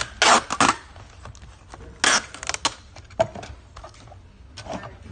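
Packing tape pulled off its roll in short rasping bursts while a cardboard box is taped shut, two longer pulls near the start and about two seconds in, with shorter tears and cardboard handling after.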